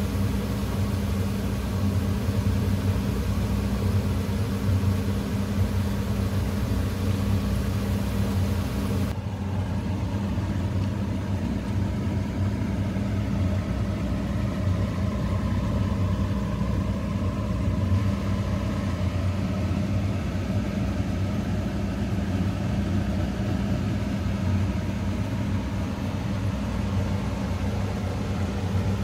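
Pakoras frying in a pan of hot oil, a steady sizzle over a steady low mechanical hum. About nine seconds in the sizzle cuts off abruptly and the hum carries on alone.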